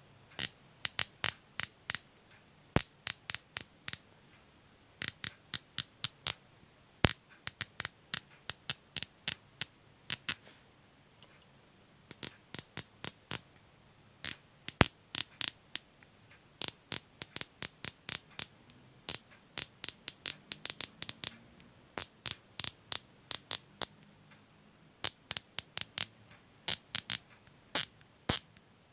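Plastic cable ties being zipped through their locking heads: runs of quick, sharp ratchet clicks in repeated short bursts with brief pauses between.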